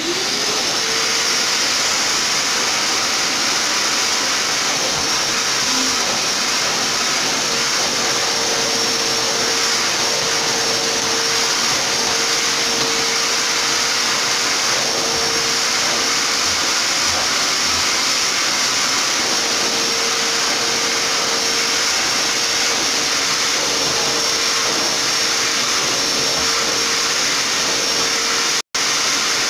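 Red canister vacuum cleaner starting up and then running loudly and steadily, with a constant motor whine over the rush of air. The sound cuts out for an instant near the end.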